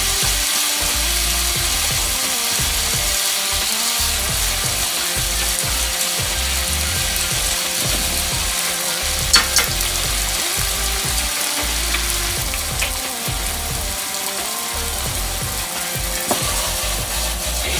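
Bacon and mushrooms sizzling steadily in a frying pan over low heat, stirred with long chopsticks, with a few sharp clicks of the chopsticks against the pan about halfway through.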